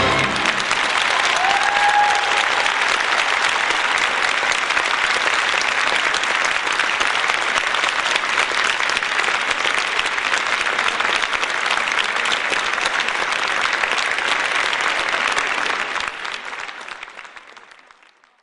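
Large audience applauding, with one short whoop about two seconds in; the applause fades out near the end.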